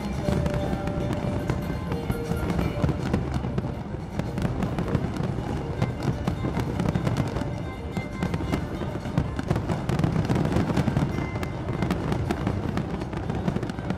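Fireworks going off in quick succession, a dense run of cracks and pops over a low rumble, with music playing underneath.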